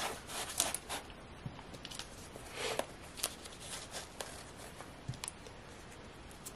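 Paper and card rustling, with short scrapes and soft clicks, as sticky-note pads and small cards are slid into the card slots of a leather ring planner. The handling is busiest in the first second and again around three seconds in.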